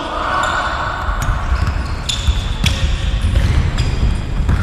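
Football being kicked and bouncing during play, heard as a few sharp knocks over a steady low rumble.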